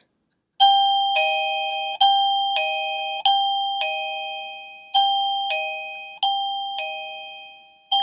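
AVANTEK CB-11 wireless doorbell receiver playing its two-note ding-dong chime five times, each higher note followed by a lower one and ringing down, as its volume setting is stepped up from silent.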